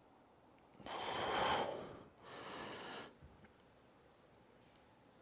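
A man breathing audibly while holding a stretch: two breaths, the first longer and louder, about a second in, the second shorter and softer right after.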